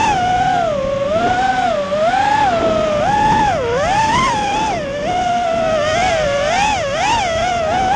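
FPV quadcopter's electric motors and propellers whining, the pitch rising and falling quickly with the throttle as it banks and swoops, heard through the onboard camera.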